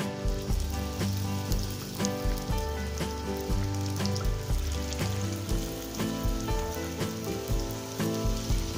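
Fuchka puris deep-frying in hot oil in a wok, a steady sizzle as the dough discs puff up, over background music.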